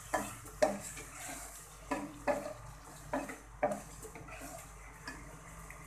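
A spatula scraping and knocking against a nonstick pot as diced chicken is stirred and sautéed, over a faint sizzle. There are about six strokes in the first four seconds, then only the sizzle.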